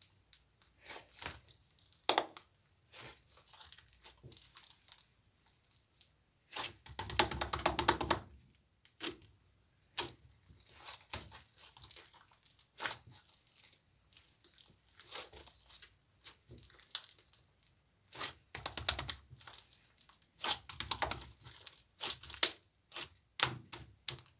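Irregular crinkling and tearing noises of material being handled, with scattered small clicks; the longest, loudest tear comes about seven seconds in.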